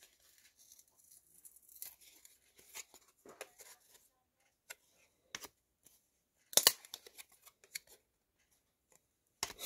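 A stack of WWE trading cards being handled, cards slid off one by one with short papery scrapes and flicks of card stock. The loudest scrapes come about two-thirds through and just before the end.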